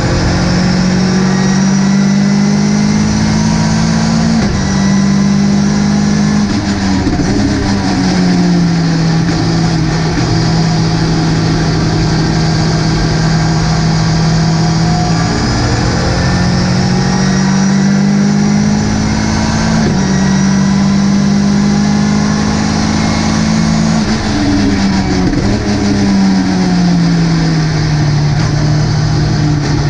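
Ginetta GT5 race car engine running hard at high, steady revs. The pitch dips and recovers a few times, climbs again about halfway through and glides down near the end as the revs fall, over steady wind and road noise.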